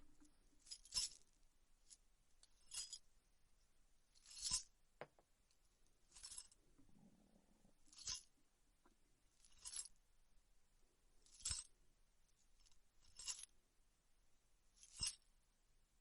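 A handful of metal jewellery tossed from hand to hand, jingling in short, high-pitched bursts about every second and three-quarters, nine times. It imitates the chime of a payal anklet.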